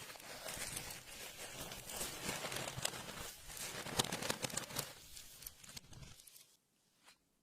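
Clear slime being kneaded and stretched by hand: a dense run of sticky clicks and crackles that stops about six seconds in, followed by one lone click.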